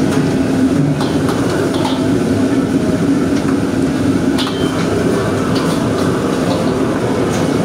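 Commercial wok range burner and kitchen exhaust giving a loud, steady rush, with a metal ladle clinking against the steel wok a few times as the food is stir-fried and tossed.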